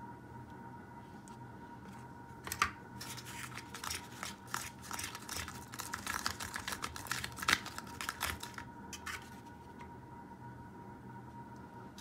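White plastic spoon stirring and scraping a thick paste of fuller's earth (multani mitti) and egg white inside a thin plastic cup: a run of quick, irregular scrapes and clicks that starts a couple of seconds in and thins out near the end.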